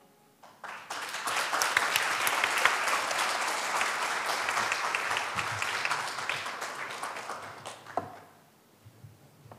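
Audience applauding, starting just under a second in and dying away near the end, where a single knock stands out as the clapping stops.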